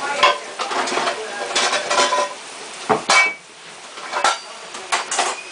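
Clinking and clattering of hard objects: a handful of sharp knocks and clatters, the loudest about three seconds in.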